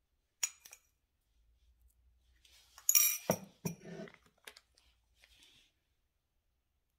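Sharp clinks and taps of cake-decorating tools being handled. One click comes near the start, and a loud cluster of metallic clinks about three seconds in is followed by a few softer knocks and taps.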